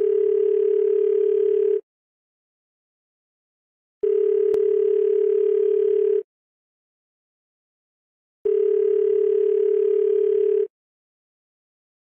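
Telephone ringback tone: a steady, low, single-pitched tone sounding three times, about two seconds on and two seconds off, the sound of a call ringing on the other end without being answered.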